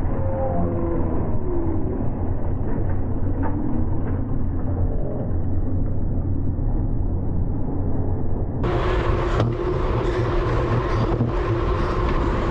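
Wind rushing over an onboard GoPro's microphone on a racing bicycle at speed, a steady low rumble. About nine seconds in the sound turns suddenly brighter and fuller.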